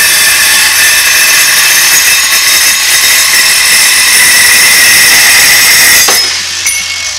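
Eastwood Mini Metal Saw cutting through steel: a loud, steady, high-pitched whine of the blade in the metal. About six seconds in the cut ends and the sound falls away.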